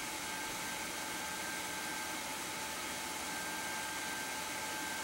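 Steady whirring hiss of a Pentium III desktop computer's cooling fans running during boot, with a faint, even high whine.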